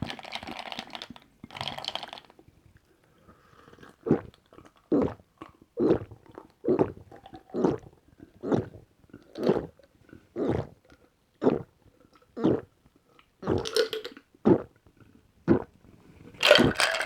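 A person gulping a carbonated drink in a steady run of about a dozen swallows, roughly one a second, after a couple of seconds of rustly sound at the start. A louder, noisier sound comes near the end.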